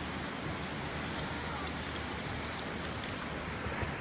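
Steady outdoor rushing noise with a rumbling, buffeting low end, the sort made by wind on the microphone over a creek, with a few faint short high chirps.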